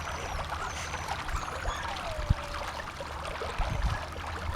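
Water trickling gently, with faint bird chirps high above it.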